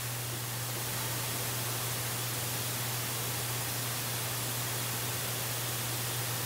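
Steady hiss of the wildlife camera's outdoor microphone, with a constant low hum underneath and no distinct events.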